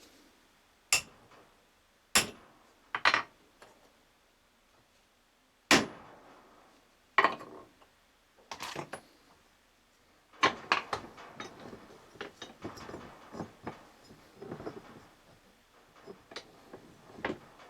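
Metal tools and universal-joint parts knocking and clinking as the joint is worked on by hand: about six separate sharp knocks, then from about ten seconds in a denser run of small clicks and rattles.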